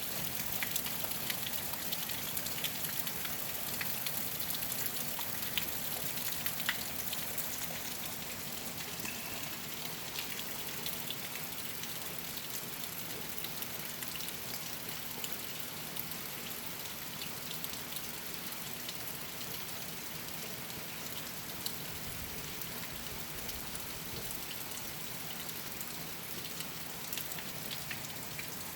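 Heavy rain falling steadily, a dense hiss dotted with the ticks of individual drops striking a surface, a little louder in the first several seconds.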